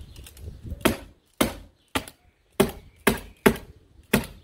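Stapler driving a rapid series of staples into lap siding, about seven sharp shots roughly two a second.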